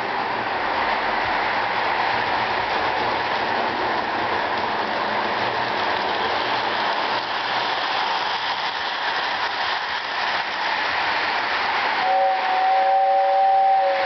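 Lionel 6-31939 O-gauge 4-4-0 General toy steam locomotive running steadily around three-rail track. About twelve seconds in its two-tone whistle gives a short toot and then a longer blast.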